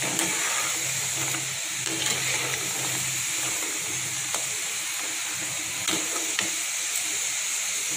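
Seedai, small rice-flour dough balls, deep-frying in hot oil in a steel kadai on a low flame, with a steady sizzle and a few faint clicks. None of the balls are bursting.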